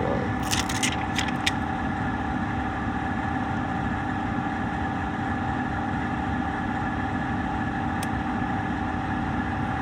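Laminar flow cabinet fans running: a steady rush of air with a constant hum. A few light clicks about half a second to a second and a half in, and one more near the end.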